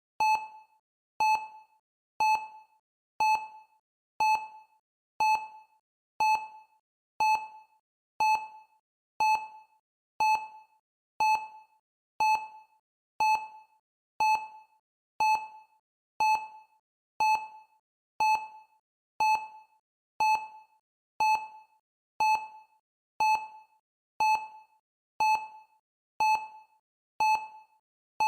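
Countdown timer's short electronic beep, repeating steadily once a second to mark each passing second. Each blip is brief and mid-pitched, with a sharp start and a quick fade.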